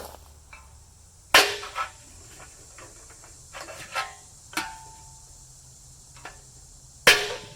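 Metal clanks: two sharp, loud knocks with a short ringing tail, about a second in and near the end, and a few lighter metallic clinks between them.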